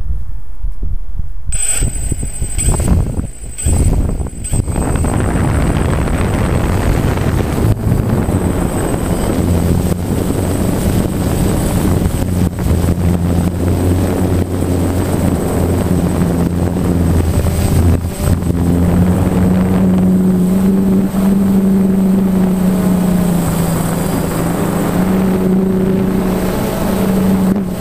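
DJI Phantom quadcopter's motors and propellers buzzing through takeoff and climb, heard from the camera mounted on the drone. A steady high whine joins about one and a half seconds in, and the hum's pitch wanders as the drone flies.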